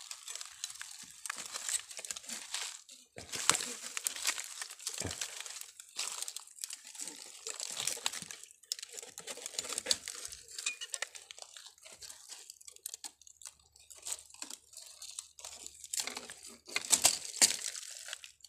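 Dry, fibrous tree roots rustling, crackling and snapping as they are gripped and pulled by hand close to the microphone, in irregular bursts, the loudest about three and a half seconds in and again near the end.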